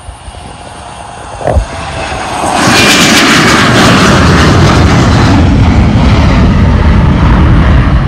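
Embraer E-Jet airliner's twin turbofan engines at takeoff power as it lifts off and climbs past close by. The jet noise swells quickly a couple of seconds in, then holds as a very loud, steady rush. A single thump comes about one and a half seconds in.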